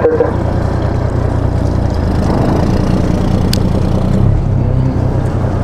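Fishing boat's engine running steadily, a low even hum, with a single short click about three and a half seconds in.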